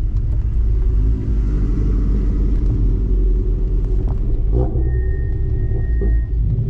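Mazda MX-5 Miata's engine heard from inside the cabin, its pitch rising and falling with the throttle over heavy low road and wind rumble on a wet track. A thin steady high tone sounds for about a second and a half past the middle.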